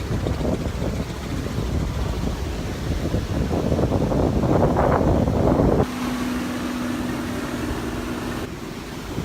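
Wind buffeting the microphone over beach surf. The rumble builds to a strong gust and cuts off suddenly about six seconds in, and a steady low hum follows for a couple of seconds.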